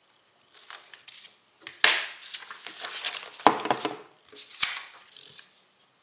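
Sheets of paper being handled and laid down: rustling and crinkling in clumps, with three sharp taps about two, three and a half, and four and a half seconds in.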